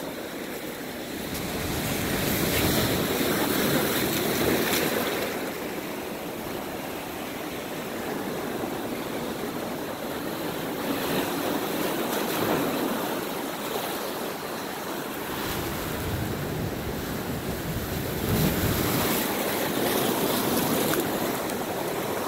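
Ocean surf washing against shoreline rocks, a steady rush that swells and eases several times, with gusts of wind on the microphone.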